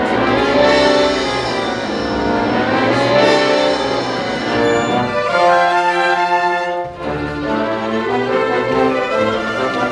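Orchestral music from a theatre pit orchestra, with strings and brass playing dense sustained chords; it drops away briefly about seven seconds in before resuming.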